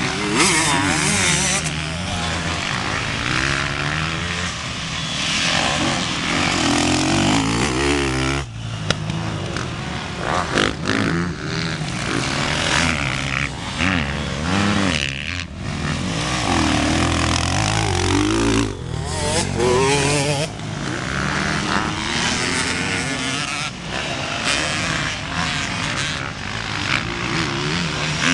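Motocross bike engines revving, their pitch rising and falling repeatedly as riders work the throttle through corners and straights on a dirt track.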